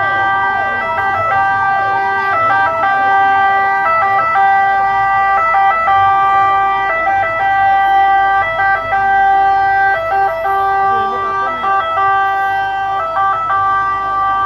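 Several fire-engine sirens sounding at once. One holds steady notes that step between pitches, while another repeats quick falling sweeps a couple of times a second.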